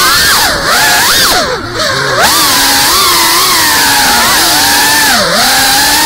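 GEPRC CineLog35 FPV drone's brushless motors and propellers whining loudly, heard from on board the drone. The pitch swoops up and down with the throttle. It dips sharply several times between about half a second and two seconds in, and once more about five seconds in.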